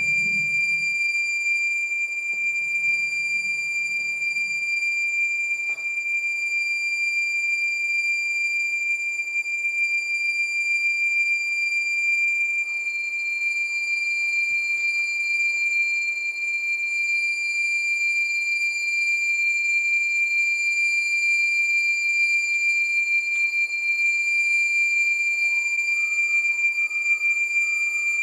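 Sustained high-pitched electronic drone from a live sound score: one piercing steady tone with fainter steady tones above it, one of which sags slightly in pitch midway. A fainter, lower tone joins near the end.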